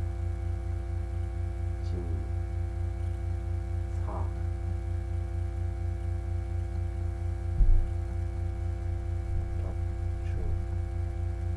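Steady electrical hum and buzz picked up by a microphone in poor condition, with a few faint murmured words and one short low thump about two-thirds of the way through.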